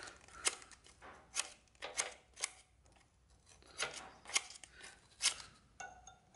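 Short scattered scrapes and clicks, about eight of them, as a rag is rubbed and pushed against the magneto's coil contact to clean it.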